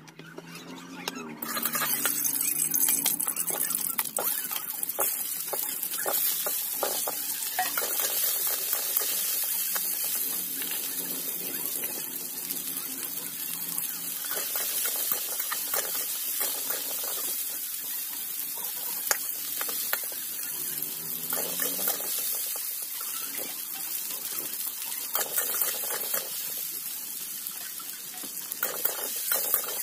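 Potato pieces frying in hot oil in a wok (kadai), a steady sizzle that starts suddenly about a second and a half in. Scrapes and knocks of stirring run through it.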